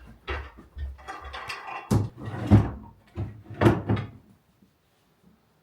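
Books being handled and set down: a run of knocks and thuds, the loudest about two and a half and three and a half seconds in, stopping a little after four seconds in.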